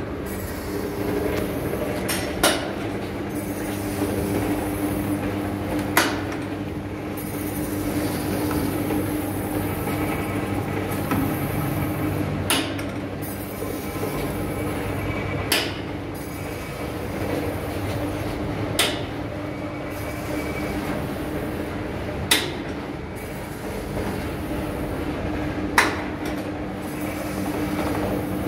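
Semi-automatic masking tape slicer running steadily, its 1 hp single-phase motor spinning the tape log on the lathe-type chuck. A sharp clack from the hand-pressed slicing head and rack carriage comes every three to four seconds as each roll is cut off.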